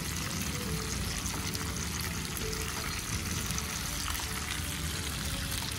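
Meat, tofu and vegetables sizzling steadily on an electric non-stick grill pan while they are turned with tongs.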